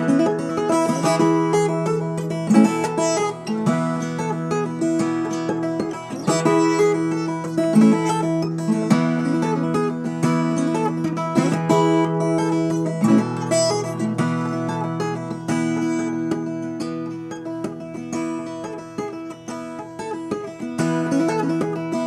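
Background music: acoustic guitar, plucked and strummed, over a sustained bass line.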